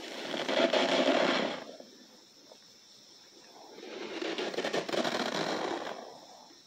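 A hand pressing into and crushing loose cornstarch powder in a plastic tub, crunching twice: once for about a second and a half, then again for about two seconds starting near four seconds in.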